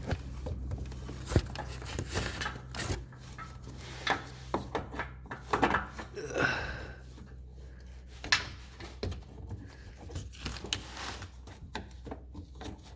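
Hand working a turn-signal bulb socket behind a car's headlight housing: irregular plastic clicks, knocks and scraping as the socket is wiggled and twisted. A low steady hum stops about three seconds in.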